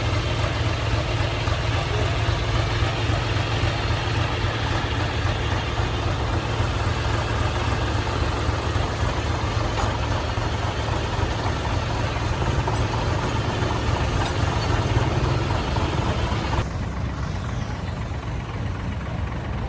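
Heavy machine's diesel engine running steadily with a deep hum. Near the end the sound suddenly turns duller and a little quieter.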